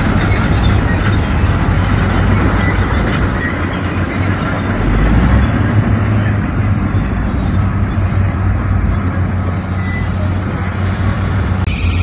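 Heavy diesel earthmoving machinery running steadily at work, most likely a bulldozer's engine under load.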